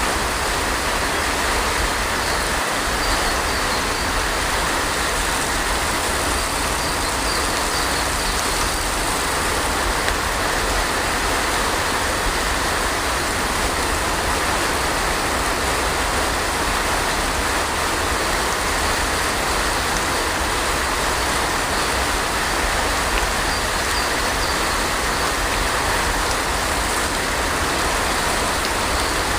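Heavy rain falling steadily: an even, unbroken hiss with a low rumble underneath.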